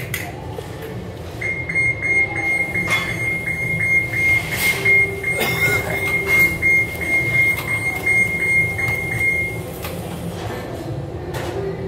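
Steady low machine drone on a job site, with a thin high whine through most of it and scattered knocks and clatter as welding gear is handled.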